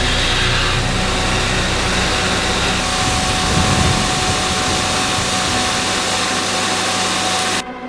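Belt grinder running with a steel sword tang held against the belt, a steady grinding rush with a faint whine. The low hum thins about three seconds in, and the sound drops away sharply near the end.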